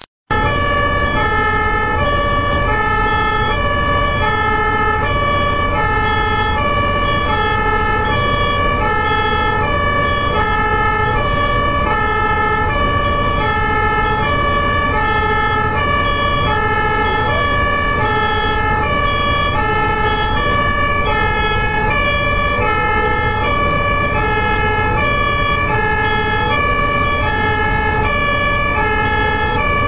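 Two-tone emergency vehicle siren of the German type, switching steadily back and forth between a high note and a low note, about one high-low cycle every one and a half seconds. It sounds over a steady low rumble of road noise.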